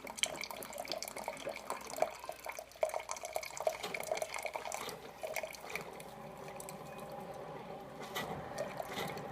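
Single-serve coffee maker dispensing a hot vinegar-and-water descaling solution into a mug, sputtering in irregular spurts at first, then settling into a steadier pour about five seconds in.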